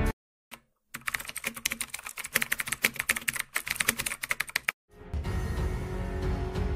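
Rapid keyboard typing clicks, a fast run of key strikes that starts about a second in and stops after about four seconds. Background music then comes in near the end.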